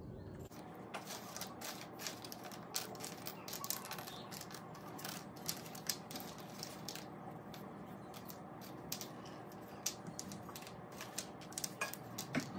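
Small wooden letter tiles clicking against one another and on a foam board as they are sorted and laid out by hand: faint, irregular light clicks.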